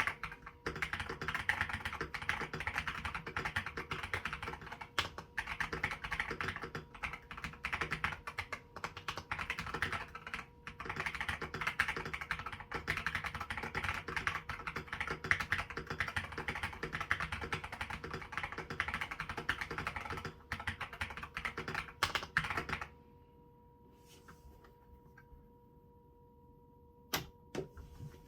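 Rapid typing on a Nexttime 75 gasket-mount mechanical keyboard fitted with stock Akko CS Lavender switches and XDA keycaps. The typing stops suddenly about three-quarters of the way through, leaving a faint steady hum and a couple of single keystrokes near the end.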